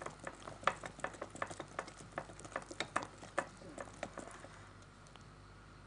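A utensil stirring soft pastry dough in a glass bowl: faint, irregular clicks and taps against the glass, several a second, dying away after about four and a half seconds.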